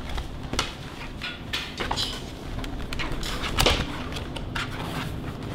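Stiff plastic wall panels of a folding mini photo studio box being unfolded and handled: irregular rustling, tapping and clicking of plastic, with one sharper click about three and a half seconds in.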